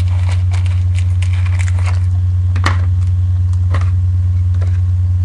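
Loud, steady low hum, with a few faint clicks and crackles scattered over it.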